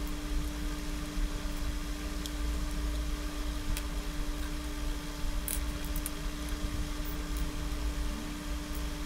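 Steady low rumble with a constant background hum, over which come a few faint, short metallic clicks from a small screwdriver working the screws out of the DC-DC converter's aluminium case.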